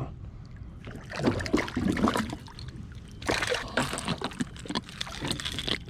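Fish splashing at the water's surface in irregular bursts, typical of jacks busting bait.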